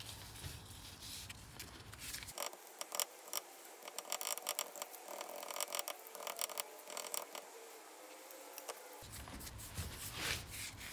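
Scraping and rubbing of hand work on a part, with many scattered clicks and knocks.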